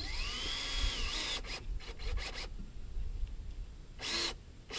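Cordless drill driving a screw into wood: the motor whines up in pitch over about the first second, then runs in a few short bursts, with one more brief burst near the end.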